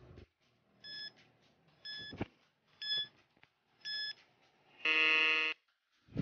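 Quiz countdown-timer sound effect: four short electronic beeps, one a second, then a longer, louder buzzer that signals time is up.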